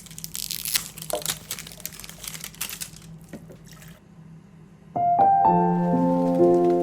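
Scattered clicks and crackles for about four seconds, a short pause, then soft piano music begins about five seconds in, its notes entering one after another and ringing on.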